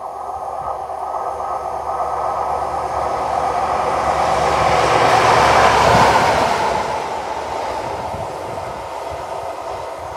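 Class 43 HST diesel power car passing through at speed. The engine and the wheels on the rails grow steadily louder, peak about six seconds in as it goes by, then fade as it draws away.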